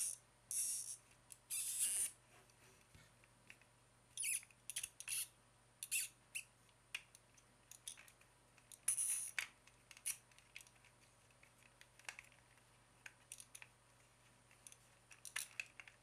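Plastic wedges of a Rubik's Snake twisted by hand: irregular clicks and short scraping sounds as the segments turn against each other, the longest scrapes near the start and about nine seconds in.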